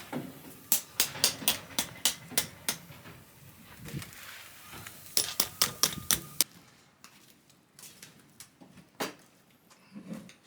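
Sharp hard taps in two quick runs of about eight, roughly four a second, followed by a couple of single knocks near the end.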